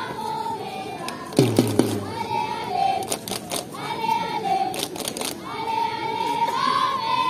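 A group of children's voices singing or chanting together in long held notes that rise and fall. A few sharp knocks or claps cut through, the loudest with a low thump about a second and a half in.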